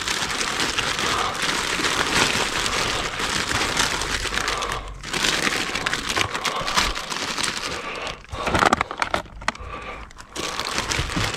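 Plastic produce bags crinkling and rustling as gloved hands dig through bagged fruit and vegetables, with brief lulls about halfway through and again near the end.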